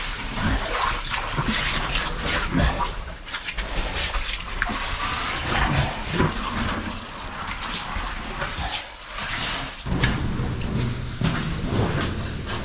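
Footsteps squelching and splashing through wet mud and shallow water, with irregular scuffs and knocks of boots and gear on rock.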